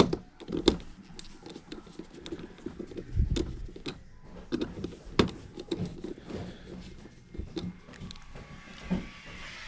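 Irregular clicks, taps and light knocks of hand work on furnace wiring, with a heavier low thump about three seconds in.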